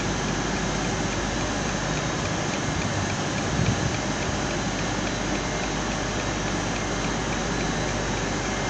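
Eurostar high-speed train beside the platform, giving a steady hiss with a faint high tone running through it.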